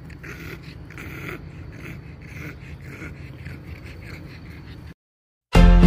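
A pug breathing hard as it runs, in quick rough puffs about two to three a second, over a steady low rumble. The sound cuts out about five seconds in, and loud music starts just before the end.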